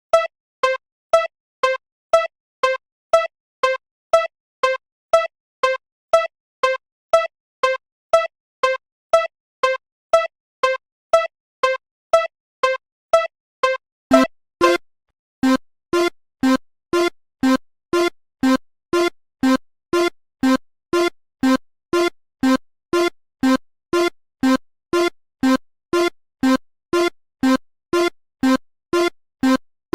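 Japanese railroad crossing alarm bell ringing, short ringing strokes alternating between two notes at about three a second. About halfway through it switches to a lower-pitched pair of notes, slightly slower.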